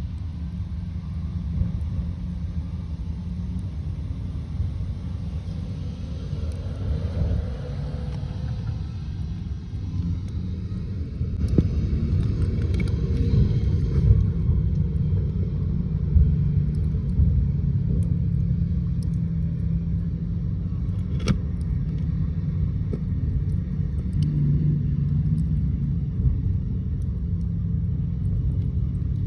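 Low, steady rumble with a few sharp ticks, given off by a coal seam that is not visibly moving; the miner puts it down to vibrations causing friction within the coal. It grows louder about eleven seconds in.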